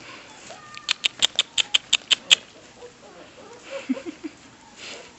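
A quick run of about nine sharp mouth clicks, like the clicking or kissing noises used to call puppies, then a few short, soft puppy whimpers near the end.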